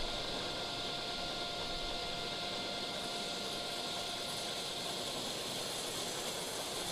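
Table saw running at speed, its blade spinning freely with a steady hum and faint whine that hold level throughout.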